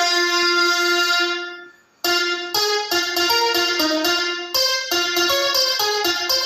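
Bright electric-piano-style keyboard melody: the treble-test music of a sound-check track, played through 8-inch Promac SR-806 speakers. A held chord dies away to a moment's silence about two seconds in, then a run of quick notes starts up again.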